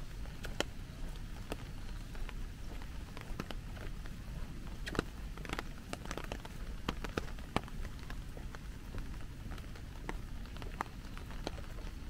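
Steady rain, with many separate large drops tapping sharply at irregular moments close by.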